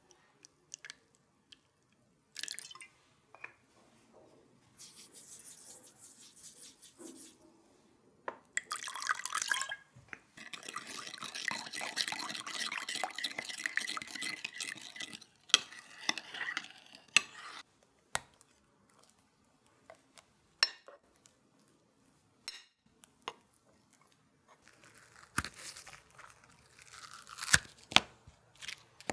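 Marsala poured from a bottle into a bowl of espresso, a steady pouring stream lasting several seconds, followed by a few light clicks. Near the end, the crisp crackle of baked ladyfingers being peeled off a silicone baking mat.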